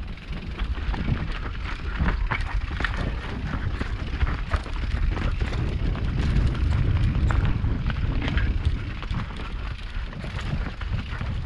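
Mountain bike ridden fast down a dirt forest trail: wind rumbling on the microphone, tyres rolling over dirt and roots, and frequent sharp rattles and clacks from the bike over the bumps. The rumble is strongest about halfway through.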